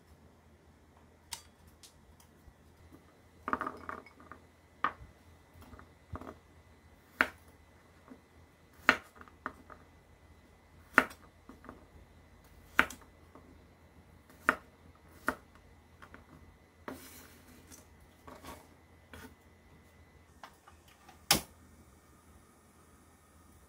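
Kitchen knife cutting garlic cloves on a wooden cutting board: a series of sharp knocks, one every second or two, with lighter clicks and clinks among them. Near the end, one louder knock as a wok-style pan is set down on a tabletop stove.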